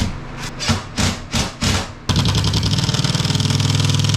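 Power screwdriver driving drywall screws: a few short bursts, then one steady, sustained run from about halfway through.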